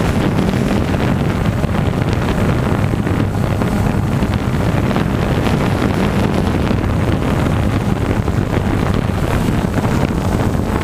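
Quadcopter motors and propellers buzzing steadily, heard from the drone's own onboard camera, with wind rushing over the microphone.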